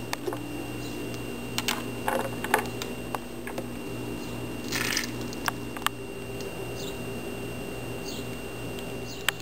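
Kitchen handling sounds: scattered clicks and knocks of measuring spoons and containers against a plastic Vitamix blender jar as ingredients are added, with a short hiss about five seconds in, over a steady low hum.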